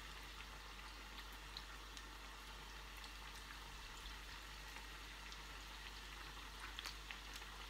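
Faint, steady sizzle of oil frying in a pan, with a few light crackles now and then.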